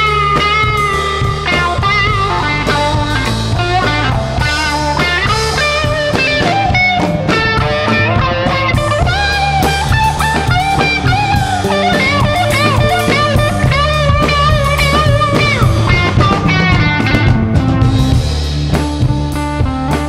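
Instrumental psychedelic blues-rock band passage: a lead electric guitar plays long, bending melodic lines over bass guitar and a drum kit.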